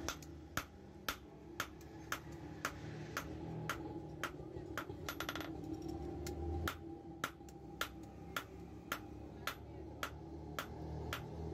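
Hand hammer striking a red-hot steel blade on a steel anvil block, sharp even blows at about two a second: hot forging of a dagger blade from an old file.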